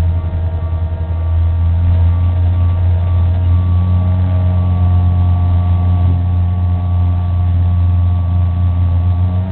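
Race car engine heard from inside the cabin, running at low, steady revs with a deep drone and a faint whine above it while the car rolls slowly; the note lifts slightly a few seconds in.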